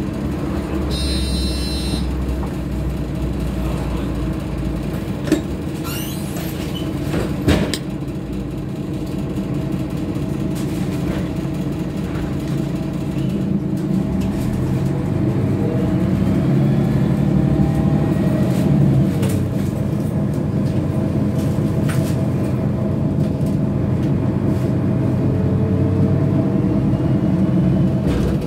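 City bus heard from the passenger cabin, its engine running at a stop. There is a short beeping about a second in and two sharp knocks a few seconds later. From about halfway the engine and drivetrain grow louder, with a whine that glides up and down as the bus pulls away.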